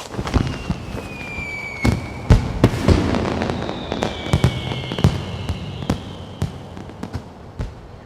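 Fireworks: a string of sharp bangs and crackles, with two whistling rockets whose pitch slides slightly downward, one about a second in and another about four seconds in.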